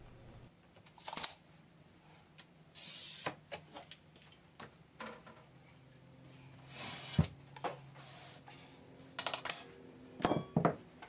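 Light handling sounds on a workbench while a cut pane of glass is measured with a tape measure: scattered clicks and taps, two brief scrapes about three and seven seconds in, and a few knocks near the end.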